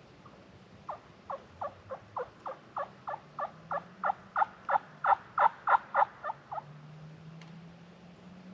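Turkey yelping: a run of about twenty short yelps, each dropping in pitch, about three a second, growing louder and then tapering off before stopping about two-thirds of the way through.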